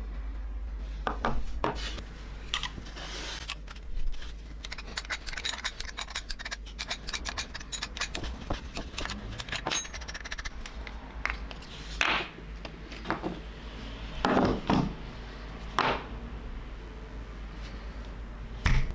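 Small metal parts being handled: light clinks, taps and scrapes, with a few louder knocks, over a steady low hum.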